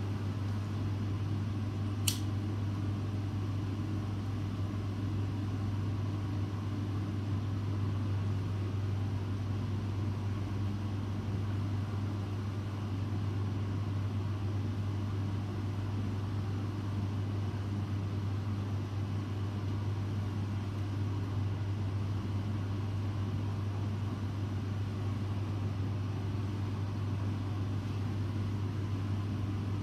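Steady hum of a ventilation fan, with one short sharp click about two seconds in.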